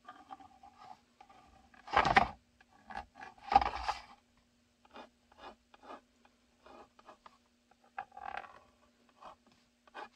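White pencil scratching marks onto a formed Kydex holster shell for its retention holes, in short strokes and taps. There are louder scrapes and knocks about two and three and a half seconds in as the stiff plastic shell is shifted on the cutting mat.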